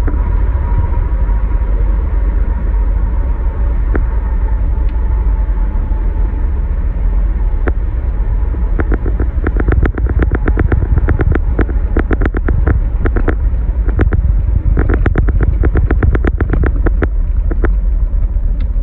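Car driving at highway speed, heard from inside the cabin: a steady low rumble of tyre and road noise, with a quick run of sharp clicks from about halfway through.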